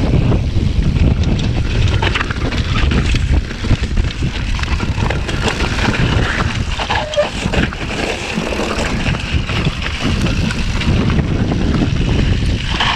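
Wind buffeting a mountain biker's GoPro microphone, mixed with steady tyre rumble and bike rattle on a dirt trail.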